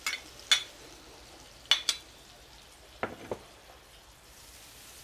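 Butter sizzling as it melts in a large metal wok, with a few short taps and scrapes of a metal spatula against the pan.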